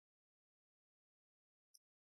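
Near silence: no audible sound apart from one very faint, brief click near the end.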